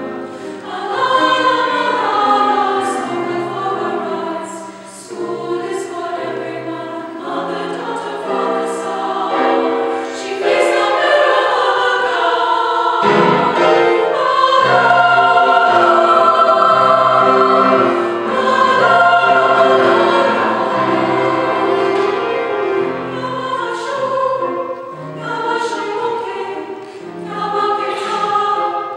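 Choir singing a choral piece in several parts, with piano accompaniment, swelling louder about halfway through.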